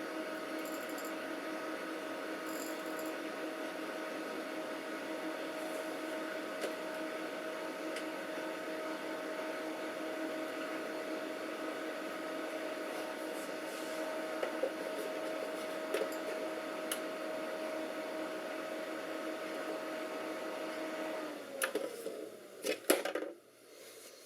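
Cooling fans of a powered-on desktop PC humming steadily with a two-note drone, the machine on but not booting. About 21 seconds in the hum stops, followed by a few sharp clicks and knocks.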